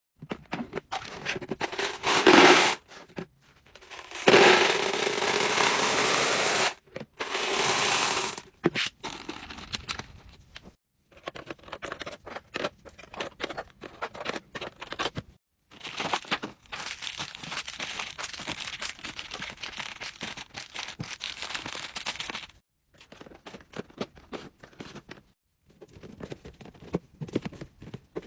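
Close-up handling sounds: several loud bursts of rough, tearing-like noise in the first eight seconds, then lighter crackling and clicking with a longer steady rustling stretch in the middle.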